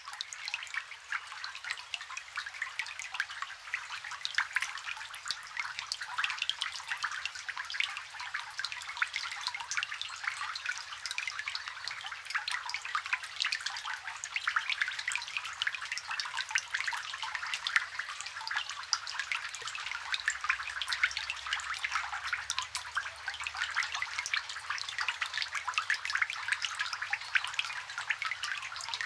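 Rain falling on water, recorded close: a dense, steady patter of countless small drops striking the surface.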